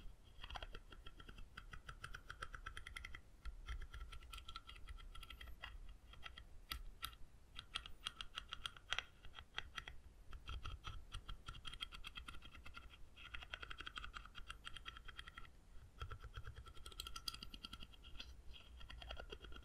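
Rapid tapping on a wooden object: runs of quick, light clicks with a faint ringing note under them and a few short pauses between runs.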